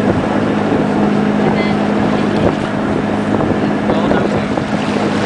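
Sea water rushing and splashing along the hull of a wooden schooner under way, with wind buffeting the microphone and a steady low hum underneath.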